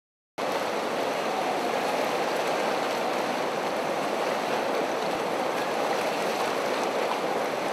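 Small waves lapping steadily over a pebbly lake shore, starting a moment after a brief silence.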